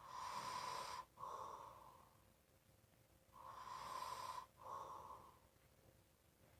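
A person snoring in heavy breaths: two breaths about three and a half seconds apart, each a long draw broken by a short catch into a shorter second part.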